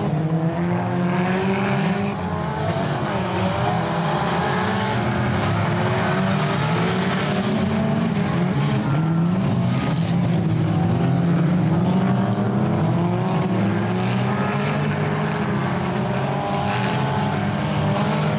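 Engines of a pack of stock cars racing together, several revving at once, their pitches rising and falling over one another as they accelerate and lift off.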